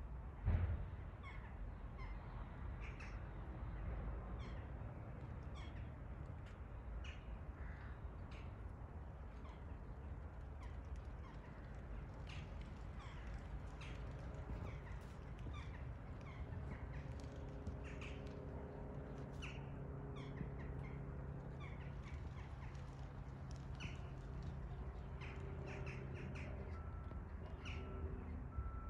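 Crows cawing again and again over a low rumble. From about halfway through, the faint steady tone of a taxiing jet airliner's engines comes in underneath.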